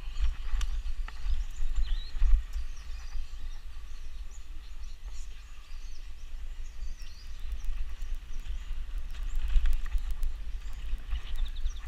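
A BMX bike riding over a bumpy dirt trail, heard through a camera mounted on the bike: a constant low rumble and wind buffeting on the microphone, with scattered rattling clicks and knocks from the bike over the ground.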